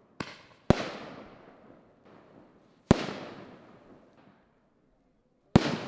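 Fireworks going off: four sharp bangs, a lighter one and then a loud one half a second later, then two more loud ones about two and a half seconds apart, each dying away in a long echo.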